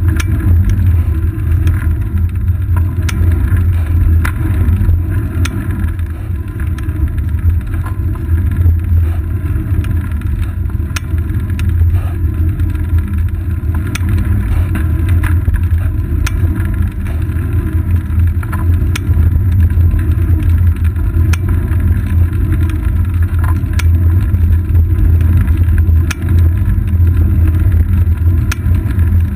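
Steady low rumble of road vibration and wind from a moving bicycle, picked up through a seat-post-mounted action camera, with scattered light clicks and rattles throughout.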